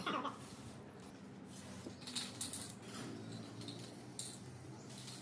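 Utility knife blade scraping along vinyl sticker lettering on a painted metal base: a few short, scratchy strokes of the blade trimming the decal.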